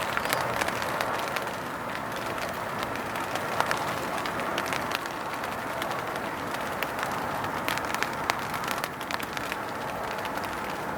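Wind and rain on a canvas lavvu tent: a steady rush with many scattered sharp taps on the fabric.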